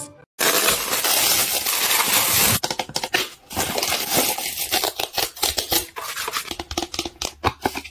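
Clear plastic wrapping crinkling and tearing as a strawberry-shaped plastic tray is unwrapped by hand: a dense spell of crinkling for the first couple of seconds, then scattered crackles and light taps.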